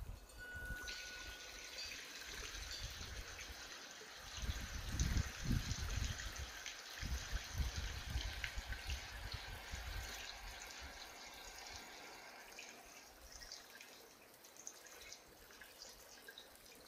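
Mountain-temple mineral spring water dripping and trickling, a faint steady hiss with fine ticks that fades after about thirteen seconds. Low rumbling bursts hit the phone's microphone between about four and eight seconds in.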